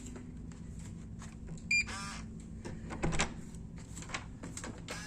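Electronic key-card door lock on a hotel room door: one short beep about two seconds in, followed by a brief buzz and several clicks and knocks of the latch and door, over a steady low hum.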